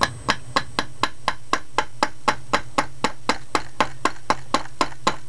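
Hammer tapping the bolt catch roll pin into an AR-15 lower receiver through a makeshift punch: light, evenly spaced strikes, about four a second.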